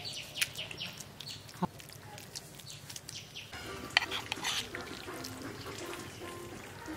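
Hands mashing and mixing pangas fish bhorta with mustard oil, making short irregular clicks; the sharpest comes about four seconds in. A faint wavering background sound runs through the second half.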